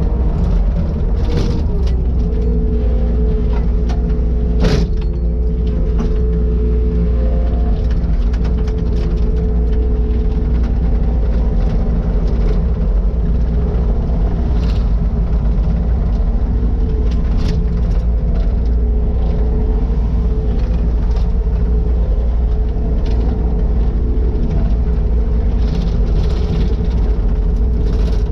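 Takeuchi TL150 loader's diesel engine running steadily with a deep rumble, with scattered short knocks over it and a sharper one about five seconds in.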